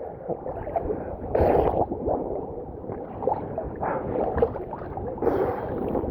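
Muffled seawater gurgling and sloshing around a camera in the water, with louder splashes about one and a half seconds and five seconds in.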